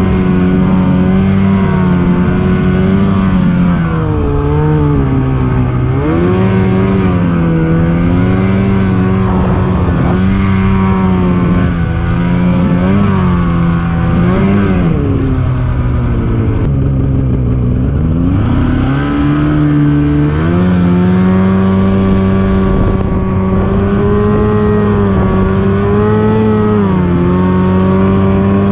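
Polaris Assault snowmobile's two-stroke engine running loud and steady under way. Its pitch dips and climbs back several times as the throttle is eased and reopened, with the deepest drop about two-thirds of the way through.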